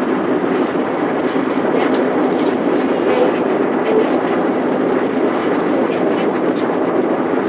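Steady roar of an airliner cabin in flight: engine and airflow noise heard inside the cabin, with a few faint ticks.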